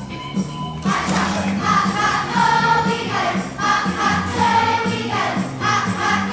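Large children's choir singing a Christmas song in phrases over instrumental accompaniment with a steady beat.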